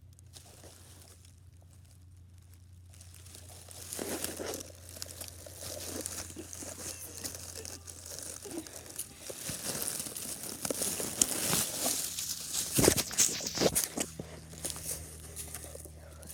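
Close, dense crinkling and crunching rustle, like movement right against the microphone. It starts a few seconds in, builds, and has its sharpest cracks a little before the end.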